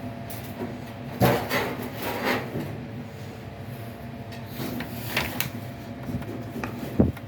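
Clothes dryer being pushed back toward the wall: scraping and rubbing, with a few knocks and the loudest knock near the end.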